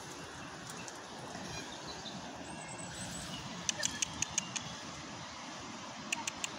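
Steady outdoor rushing noise. About halfway through there is a quick run of five or six sharp high-pitched ticks, and another short run of ticks comes near the end.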